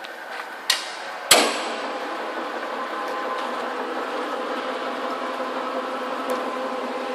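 Hamai Seiki horizontal milling machine: two sharp metallic clunks about half a second apart near the start, then the machine running with a steady hum carrying several steady whining tones.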